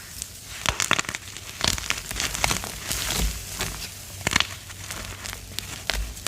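Gym chalk being crushed and crumbled, giving a run of irregular sharp crunches and crackles.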